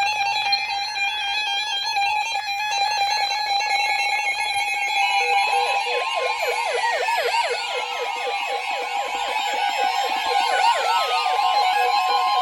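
Weather alert radios sounding their alarms for a new NOAA Weather Radio warning. Several electronic beeping and warbling siren tones overlap, starting suddenly. Fast warbles and long falling sweeps join partway through, and a steady tone comes in strongly in the second half.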